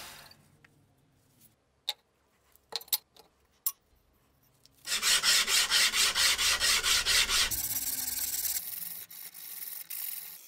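Hand sanding a steel knife blade with a strip of sandpaper: quick back-and-forth strokes, about five a second, starting about halfway through and easing off near the end. Before the sanding starts there are a few light clicks.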